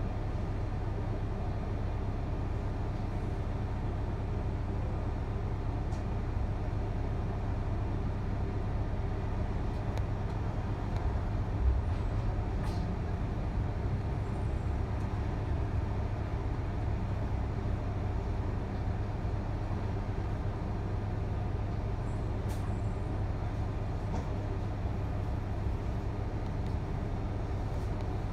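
Inside a moving double-decker bus: a steady low engine hum and road noise, with a single knock about twelve seconds in.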